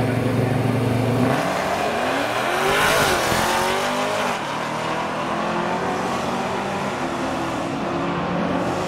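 Modern HEMI V8 drag car launching: a steady engine note breaks about a second in and the pitch climbs steeply under hard acceleration. It is loudest as it passes about three seconds in, then the note rises again in steps through gear changes as it pulls away down the strip.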